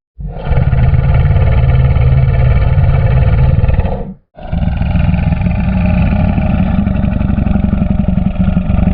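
Crocodile growling: two long, low, pulsing growls, the first lasting about four seconds and the second following after a brief break.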